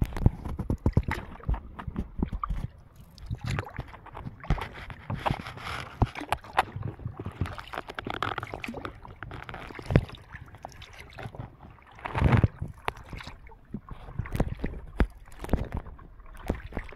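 River water lapping and sloshing against an inflatable stand-up paddleboard, with irregular slaps and splashes.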